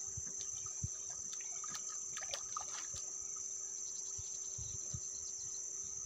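Steady high-pitched drone of insects, with light splashes and knocks from a fish being handled in shallow water.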